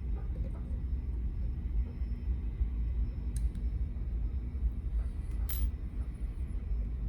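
Steady low rumble with a few faint, sharp clicks of small metal lock parts and a small screwdriver as a Mul-T-Lock Junior padlock is being taken apart.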